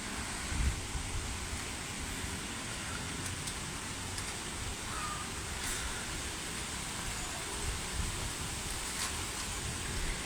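Strong wind blowing across the microphone: a steady hiss with uneven low rumbling buffets.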